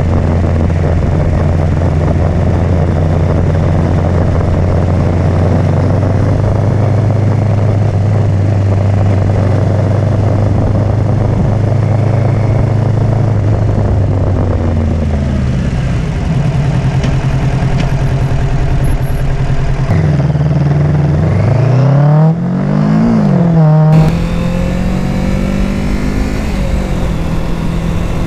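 Kawasaki Z650 parallel-twin motorcycle engine heard while riding, with wind rush on the mic. It cruises at steady revs, then about 20 seconds in the revs climb twice with a drop between, accelerating up through a gear change, and settle at a steady, higher note.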